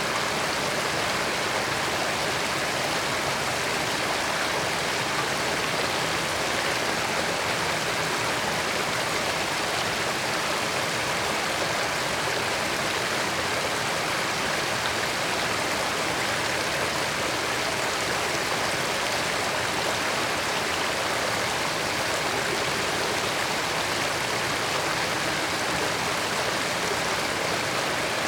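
Creek water flowing and babbling steadily, an even rushing with no breaks or changes.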